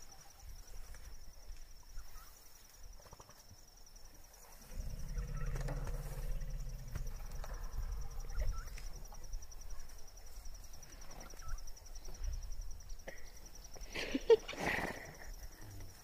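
Elephant field recording over a steady, high cricket trill. A low rumble sets in about five seconds in and eases after about eight seconds, and a louder, sharper call comes about fourteen seconds in.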